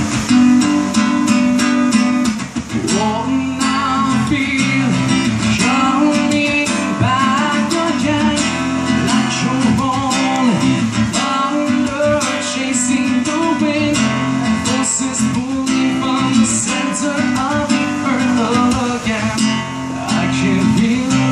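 Music: an acoustic guitar strummed steadily, with a bending melodic line over it, in an instrumental passage between the sung verses of a rock ballad.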